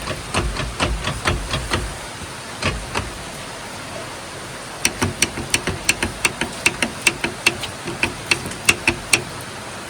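Rapid, regular metallic clicking and knocking from a worn universal-joint (UJ) cross on a Mahindra pickup's propeller shaft, about three clicks a second, with heavier knocks in the first two seconds. The sound comes from play in the cross, worn for lack of greasing.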